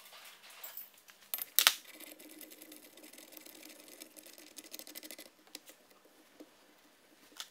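Steel bearing puller's forcing screw being worked by hand to press a kingpin bearing off its plate: a sharp metal click about a second and a half in, then a few seconds of rapid fine ticking, then scattered clicks.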